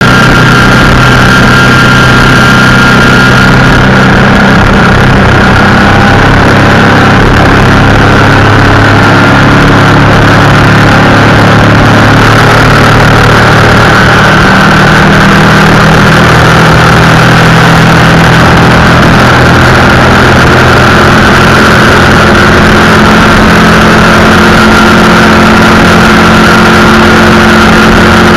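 A waterski racing boat's exposed inboard racing engine running hard at speed, heard from on board: a loud, steady drone mixed with rushing wind and water. The engine note rises a little about halfway through.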